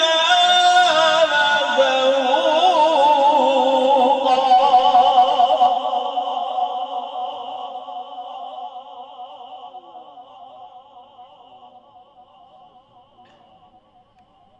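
A man's voice reciting the Quran in melodic tajweed style through a sound system, drawing out a long, ornamented phrase. About six seconds in it settles on one wavering held note that fades away slowly until it is very faint.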